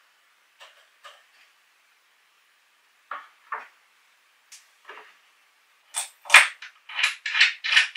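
Wooden workshop handling sounds: a few light taps, then a run of sharp knocks and clatters from about six seconds in as Douglas fir panels and wooden hold-down clamps are set down on an MDF workbench top.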